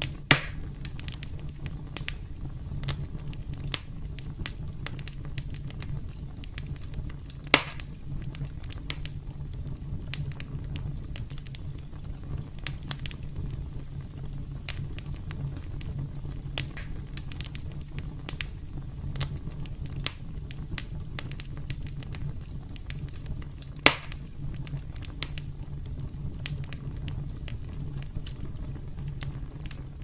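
Wood campfire crackling: frequent small snaps over a steady low rumble. Three louder pops stand out, one right at the start, one about a quarter of the way through and one about four-fifths of the way through.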